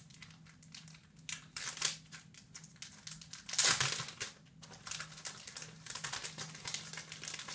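Packaging crinkling and rustling in irregular bursts as the art cards are unwrapped and handled, loudest about three and a half seconds in.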